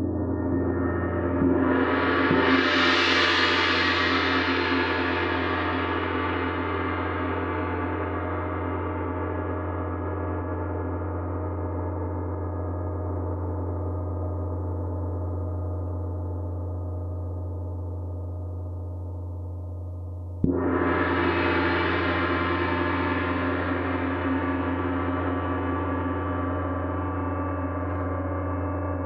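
A 26-inch Paiste Symphonic gong played with a felt mallet. It swells over the first few seconds to a full, bright wash and then rings on with a long, slow fade, the slow decay typical of a gong. About twenty seconds in it is struck again with a sharp hit and blooms back up, still ringing at the end.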